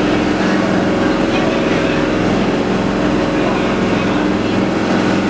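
Boat engine running with a steady, unbroken drone.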